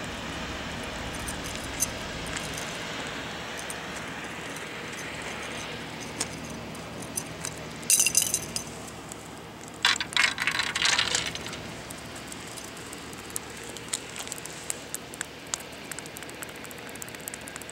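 A young mackerel flapping on a concrete breakwater: a quick flurry of slapping taps about 8 seconds in and a longer rattle of them around 10 to 11 seconds, then a few scattered ticks, over a steady background hiss.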